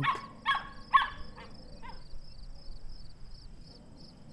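Dog yapping in about five short, high-pitched yelps over the first two seconds, then stopping. A steady high chirping, about four a second, runs underneath.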